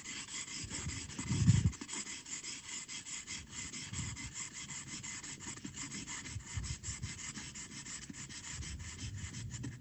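Pencil shading on paper: quick, even back-and-forth hatching strokes scratching steadily as a mid-tone area is filled in. A brief low bump about a second and a half in.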